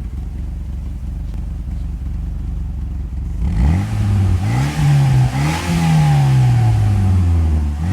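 1996 Mitsubishi Eclipse GST's turbocharged four-cylinder idling, then revved up about three and a half seconds in. The revs rise and fall a few times with a hiss while they are high. It is being run up toward 5000 rpm to check a turbo that the owner suspects has bad seals and some shaft play.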